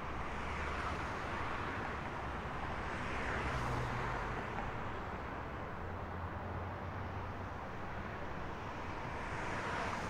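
Steady night-time city traffic noise, swelling briefly as a vehicle passes about three and a half seconds in and again near the end.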